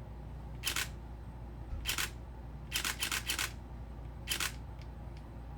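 Nikon D5500 DSLR shutter and mirror firing in short sharp clacks. There is a single shot a little under a second in and another about two seconds in. About three seconds in comes a quick run of three in continuous mode, and one more single shot follows at about four and a half seconds.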